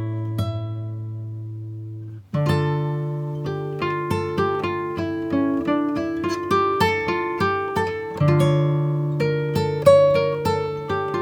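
Background music on plucked acoustic guitar. A held chord fades away, then about two seconds in a new phrase starts with a low bass note under a run of picked notes.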